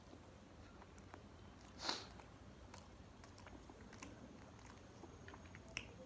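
A person chewing and eating, with small wet mouth clicks, and one louder, noisy bite or crunch about two seconds in.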